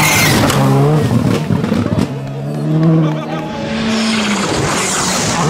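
Rally car engines at full throttle on a gravel stage: a Skoda Fabia R5 passes close, its engine pitch climbing and dropping through gear changes, with a sharp crack about two seconds in. Another rally car is then heard coming on from further off.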